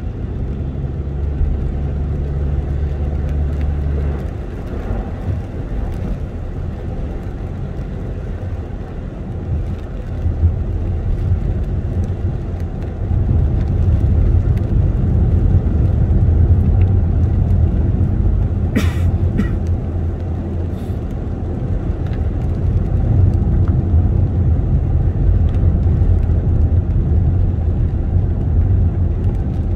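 Car road noise from inside the cabin while driving on wet roads: a steady low rumble of tyres and engine that grows louder a little before halfway. A few sharp ticks sound a little past the middle.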